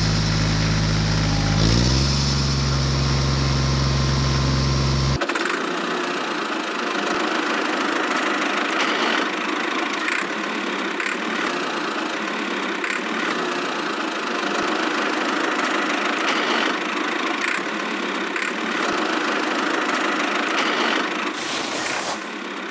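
A small motor running steadily, a dense mechanical hiss without much low end. For about the first five seconds it is joined by deep steady low tones that shift pitch once and cut off suddenly.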